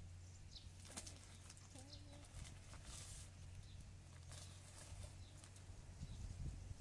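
Quiet handling sounds: faint crackles of plastic bags and marigold stems being handled, over a low steady hum, with one brief faint call about two seconds in.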